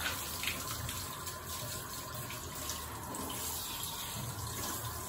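Handheld shower head spraying a steady stream of water onto a dog's wet coat.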